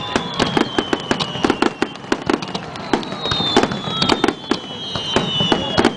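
Fireworks display: a rapid, dense string of sharp cracks and pops, with a high whistle that slides slowly down in pitch from about halfway through.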